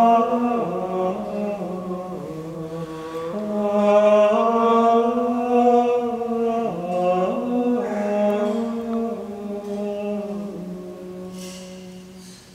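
Gregorian chant of the Mass propers, sung on one melody line by male voices with long held notes moving by small steps. The last note dies away just before the end.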